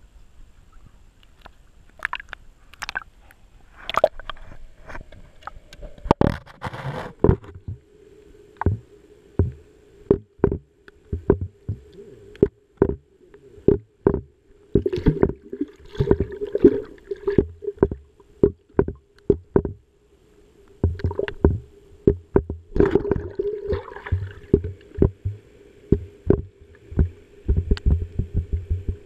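Pool water sloshing and gurgling against an action camera's waterproof housing, heard muffled from inside it, with many small knocks and clicks as the housing bobs and gets bumped. A steady hum comes in about seven seconds in.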